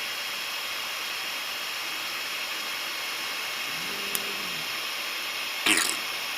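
Steady fan hiss from the 3D printer. About four seconds in, a stepper motor gives a brief hum that rises and falls in pitch as the axis is lowered, followed by a short clatter near the end.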